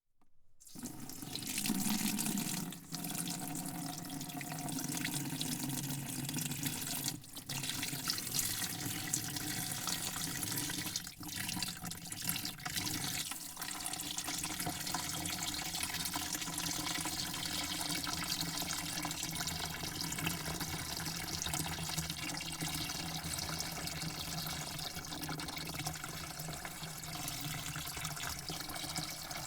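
Water falling and splashing in a steady stream, fading in over the first second, with a few brief dips in the flow.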